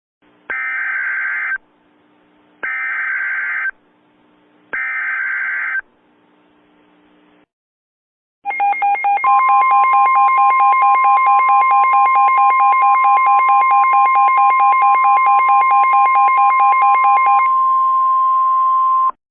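Emergency Alert System header: three short bursts of digital data, each about a second long. About ten seconds of loud alert attention tone follows, a steady high tone with a rapidly pulsing second tone under it; the pulsing drops out about a second and a half before the steady tone ends.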